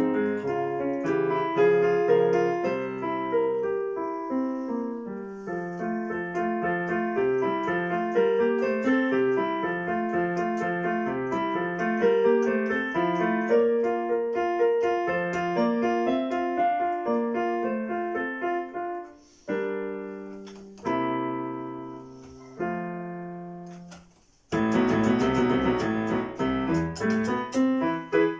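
Portable electronic keyboard on a piano voice, played solo: a steady flowing stream of notes, then a few separate chords that ring out and fade with short pauses between them, before a loud, dense, fast passage starts about three-quarters of the way through.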